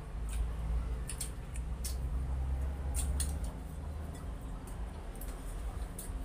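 Eating sounds close to the microphone: chewing and small wet mouth clicks scattered through, over a low steady rumble.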